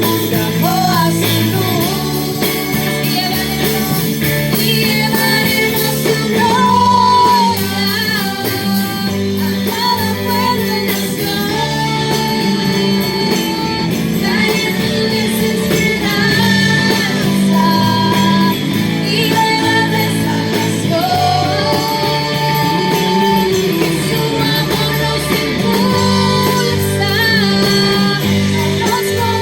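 A Spanish-language worship song sung with guitar accompaniment, playing on without a break.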